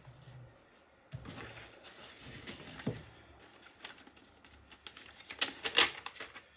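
Rustling and handling of quick-change lathe tool holders and their packaging, with scattered sharp clicks and a quick run of louder clicks near the end.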